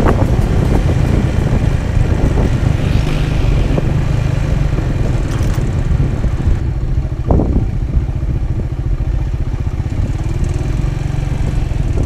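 Motorcycle engine running steadily while the bike is ridden along the road.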